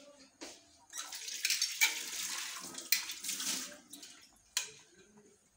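Water running for about three and a half seconds, starting about a second in, with a few sharp clicks along the way.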